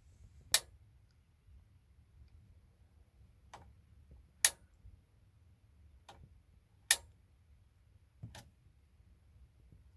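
Piezo igniter on a Rheem gas water heater clicking as it is pressed to spark the pilot. There are three sharp, loud clicks, about half a second in, near the middle and about seven seconds in, with fainter clicks between them.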